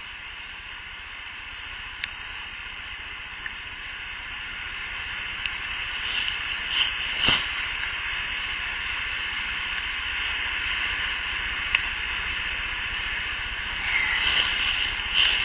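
Hissy outdoor field recording from an unattended audio recorder, with a few faint sharp clicks and a single stronger pop about seven seconds in. The recordist presents these as the snaps, pops and other mouth sounds she attributes to Sasquatch. The hiss swells in brief bursts near the middle and again near the end.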